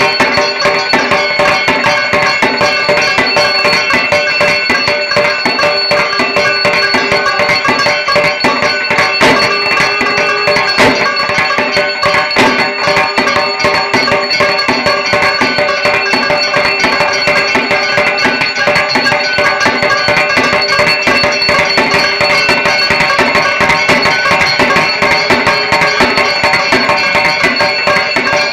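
Dhak, the Bengali two-headed barrel drum, played in a fast, unbroken rhythm, with steady high tones held over the drumming.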